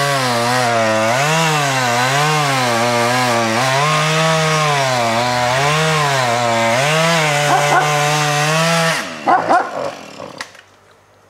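Husqvarna 435 two-stroke chainsaw cutting into an aspen trunk, its engine speed rising and falling over and over as it works through the wood. It cuts off abruptly about nine seconds in, followed by a few sharp knocks.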